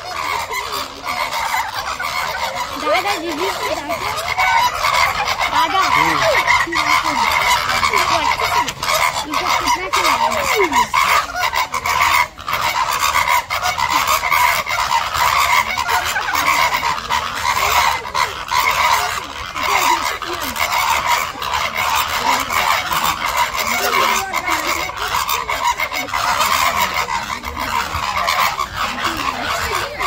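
A flock of greater flamingos honking continuously, many goose-like calls overlapping in a dense chatter, the calling that goes with their group courtship display.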